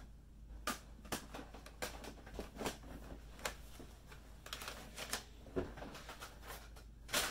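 Plastic CD jewel cases being handled and set down: a scattered series of light clacks and knocks, with one louder clack near the end.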